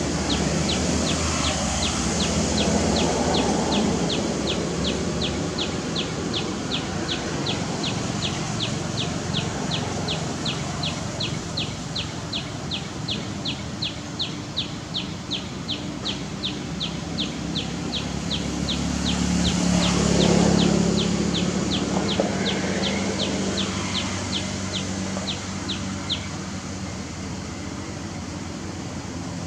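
Outdoor ambience with a short high chirp repeated very evenly, about two and a half times a second, which stops near the end. Around two-thirds of the way through, a low hum swells and fades.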